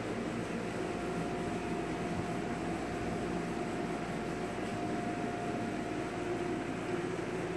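Steady mechanical hum and hiss with a faint constant high whine.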